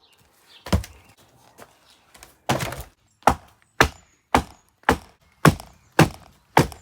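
Wooden thunks of logs being thrown down onto a pile, one after another. They come irregularly at first, then in a steady run of about two a second.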